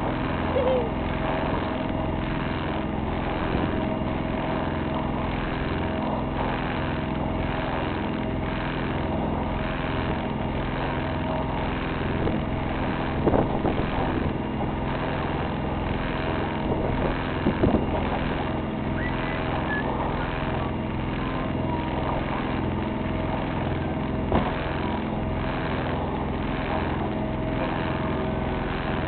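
A sailboat's auxiliary engine running steadily as the boat motors along, with a few brief knocks on board.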